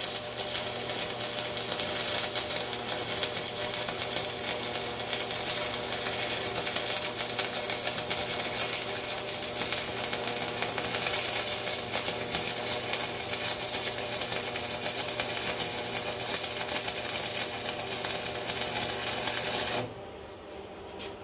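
Wire-feed welder's arc crackling steadily as it lays a weld on steel, then cutting out near the end when the trigger is released.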